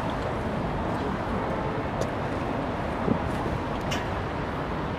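Steady rumble of vehicle engines and traffic, with a few brief faint ticks.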